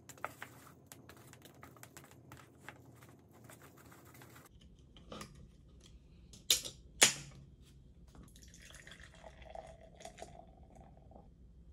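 Chopsticks clicking against a paper cup while stirring instant noodles, then a beer can cracked open with two sharp snaps about six and a half seconds in, followed by beer pouring and fizzing into a glass.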